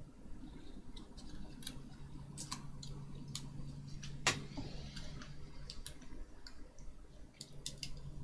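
Scattered small clicks and taps of hand work on the Nintendo Switch's LCD ribbon cable as it is pushed into its board connector, with one louder click about four seconds in. A low steady hum runs underneath.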